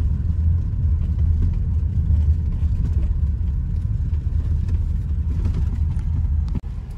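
Steady low rumble of a car moving slowly, heard from inside the cabin: engine and road noise with no sharp events.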